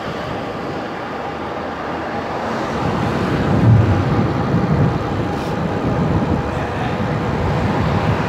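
Wind rushing over the microphone, with road noise from an electric bike riding along a road. It is a steady rush that swells into a stronger low rumble between about three and five seconds in.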